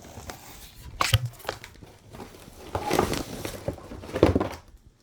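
Plastic wrapping rustling and crinkling, with a few sharp knocks, as a hand vacuum is handled and pulled from it; loudest around three and four seconds in.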